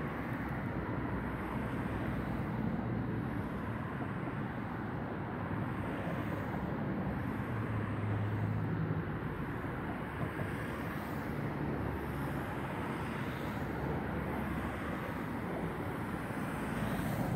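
Steady city traffic rumble with the low drone of passing engines, swelling about eight seconds in and again around twelve seconds.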